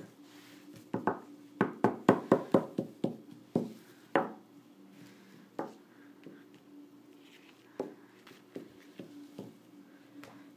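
Plastic toy ponies tapped and knocked against a tabletop as a hand moves them about: a quick run of taps in the first few seconds, then a few scattered single knocks.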